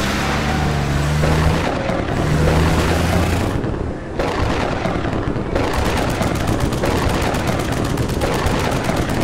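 Cartoon monster truck engines running as a loud, dense rumble, with low humming tones in the first few seconds, turning into a rapid even rattle of about ten pulses a second from about halfway in.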